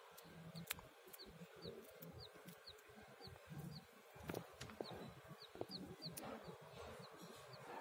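Week-old bantam chicks peeping faintly: short, high, falling cheeps about twice a second, with a few soft taps among them.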